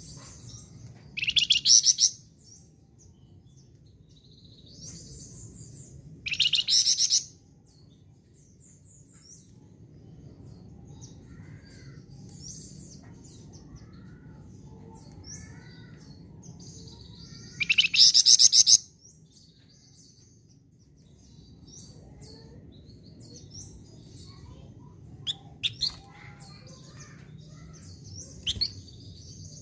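A flamboyan songbird singing: three loud, fast, buzzy trilled phrases of about a second each, the first rising sharply in pitch. Between them come soft scattered chirps and a few short sharp notes near the end, over a low background hum.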